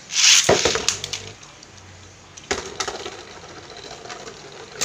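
Beyblade spinning tops hand-launched into a plastic stadium bowl: a loud scraping clatter as they land just after the start, then scattered clicks and knocks as they spin and strike each other, the sharpest about halfway through.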